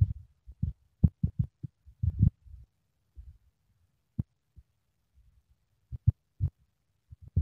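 Irregular low thuds and rumbles on a phone's microphone, the buffeting and handling noise of a camera carried along on foot. They come in a cluster over the first couple of seconds, thin out, then return near the end.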